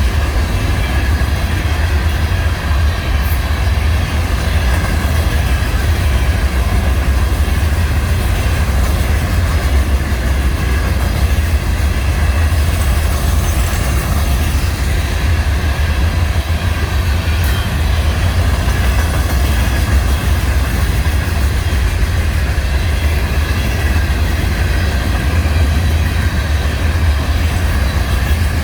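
Florida East Coast Railway freight train rolling past, with a loud, steady rumble and rail noise from the wheels on the track.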